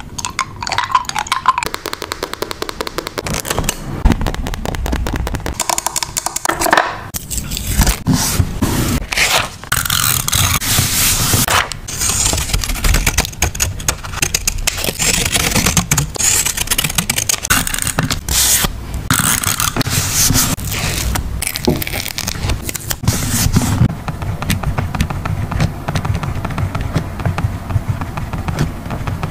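Paper and stickers being handled for a journal collage: a continuous run of scraping, crackling and small taps as pieces are peeled, placed and rubbed down.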